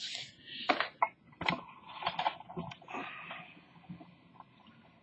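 Light handling noise: scattered small clicks and paper rustling as a model kit's instruction sheet is moved about.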